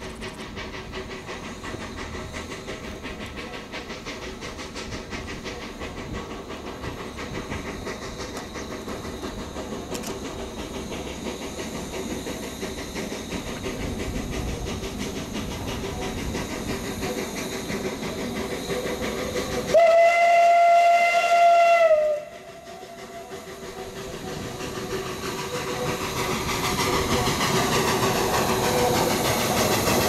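A 760 mm narrow-gauge steam locomotive approaching with its train, its working sound growing steadily louder. About two-thirds of the way in it gives one steady whistle blast of about two seconds, which sags slightly in pitch as it cuts off.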